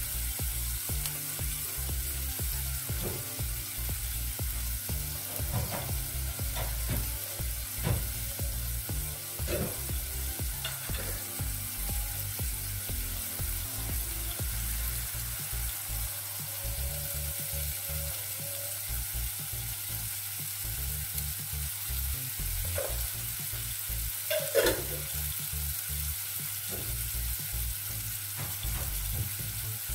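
Onion, green chilli and tomato sizzling in oil in a nonstick frying pan, a steady crackling hiss, with scattered clicks and one louder knock near the end from the wooden spatula and the sambal going into the pan.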